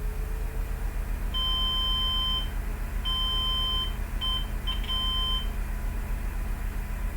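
Electronic beeps: a high, pure tone sounds five times, two longer beeps of about a second each followed by two short ones and a last longer one, irregularly spaced. A low steady hum runs underneath.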